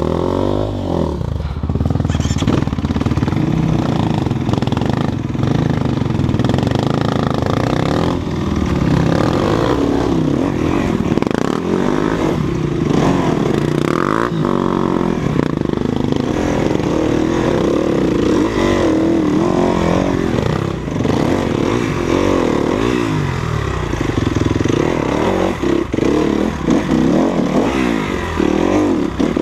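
Off-road dirt bike engine revving up and easing off again and again as it is ridden over rough trail, with knocks and clatter from the terrain.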